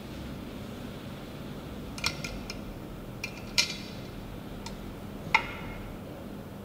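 A stirring utensil clinking against the inside of a large glass jar of liquid soap: about seven sharp, irregular clinks from about two seconds in, the loudest a little past five seconds.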